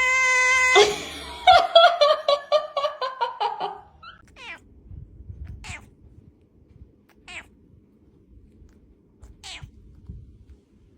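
Domestic cat meowing: a long, steady held meow that stops about a second in, then a quick run of short cries falling in pitch for a couple of seconds. After that, only a few brief, faint calls.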